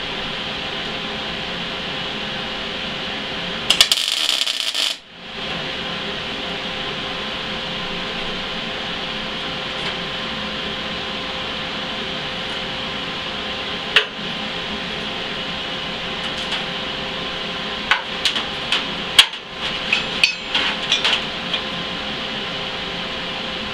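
Steady shop hum broken about four seconds in by roughly a second of crackling from a MIG tack weld on steel square tube. Near the end come a scatter of sharp metallic clinks and knocks as welding magnets are pulled off and steel tube is set down on the steel welding table.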